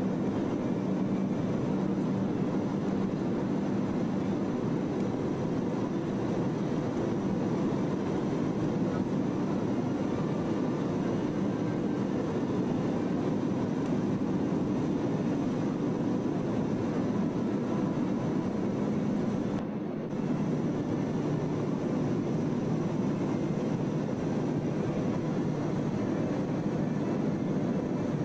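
Steady engine and airflow drone inside the cabin of a Boeing 737 airliner in flight, low and even, with a brief dip about two-thirds of the way through.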